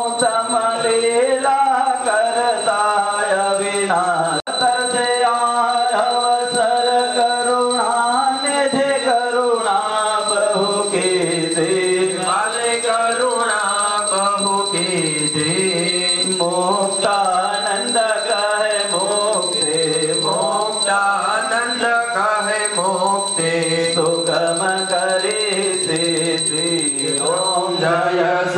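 A group of voices chanting a devotional mantra in unison, the melody rising and falling. A steady high ringing tone sounds underneath and stops near the end.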